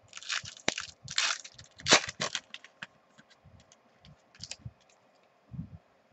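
Foil wrapper of a football trading-card pack being torn open and crinkled, loudest about two seconds in. Then the cards are handled with a few small ticks and rustles.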